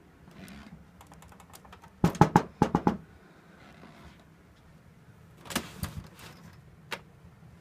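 A run of light clicks, then a cluster of loud knocks about two seconds in and a few more knocks and a click later on: something hard being handled or bumped.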